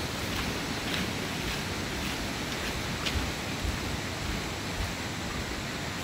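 Steady rushing of a waterfall's stream, an even hiss of running water, with a couple of faint clicks.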